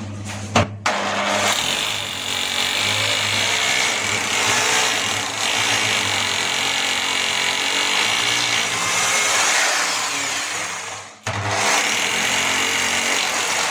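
Electric hammer drill boring into a ceramic-tiled wall, running steadily with a whine. It starts about a second in, stops briefly about eleven seconds in and starts again. It is drilling the screw holes to mount a toilet cistern.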